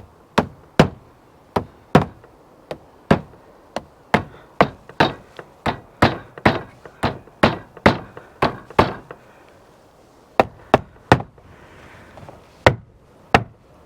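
Hammer driving roof tacks back into a shed roof: a run of sharp, separate strikes, about two or three a second, with a couple of short pauses in the last few seconds.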